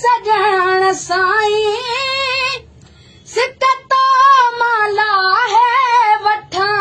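A boy singing unaccompanied in a high voice, holding long, wavering notes. He breaks off for about half a second in the middle, then carries on.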